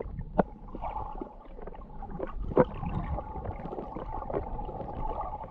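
Muffled sound of water heard with the microphone under the sea surface, with scattered clicks and knocks, the loudest about two and a half seconds in, and a faint steady hum.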